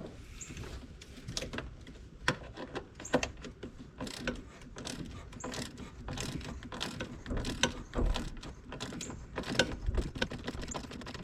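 Hand ratchet and socket clicking in short irregular runs while the mounting bolts of a blower motor assembly are loosened.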